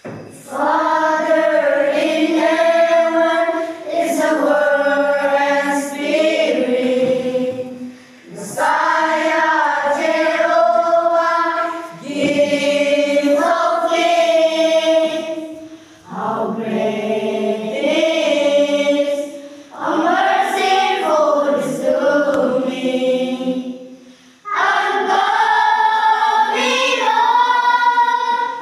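A group of children singing together in unison, in phrases of about four seconds, each ending in a short breath pause.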